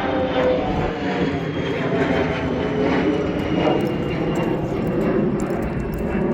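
A propeller airplane flying over, its engine drone steady and slowly falling in pitch, over wind rumble on the microphone.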